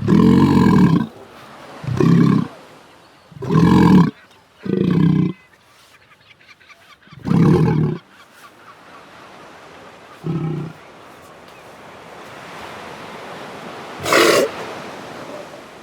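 Adult sea lion roaring to mark its territory: six deep, harsh calls of half a second to a second each, spaced by pauses, over a background hiss that rises toward the end. Near the end comes one shorter, higher-pitched call.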